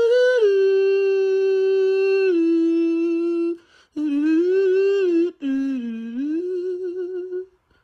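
Arctic wolf howling: one long held howl that steps down in pitch twice and breaks off, followed by two shorter howls that waver, dip and rise again.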